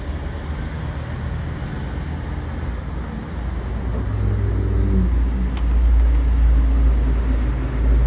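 Low, steady rumble like an engine running, growing louder from about four seconds in.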